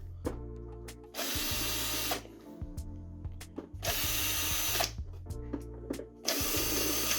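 Electric screwdriver running in three short bursts of about a second each, backing out the screws under the speaker's bottom feet, with small clicks of handling between the runs.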